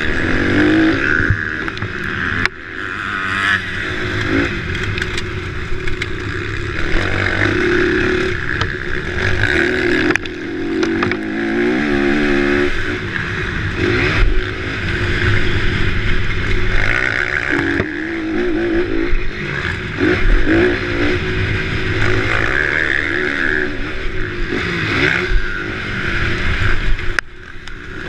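Motocross dirt bike engine revving up and down again and again as the bike accelerates and shifts around a dirt track, heard from an onboard camera. The engine note drops away sharply for about a second near the end, then comes back.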